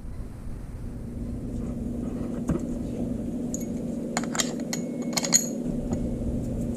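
Small metal chainsaw parts clinking and tapping as they are handled and fitted back onto the clutch side of a Stihl MS290, several sharp clicks bunched together in the second half. A steady low hum runs underneath.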